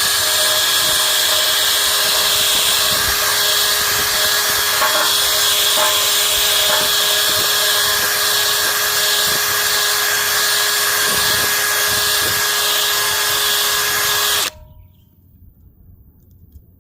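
Power drill spinning a steel wire wheel against a griddle plate, scrubbing off rust and baked-on grease, with a steady motor whine over the harsh hiss of the wire bristles. It runs without a break and stops abruptly near the end.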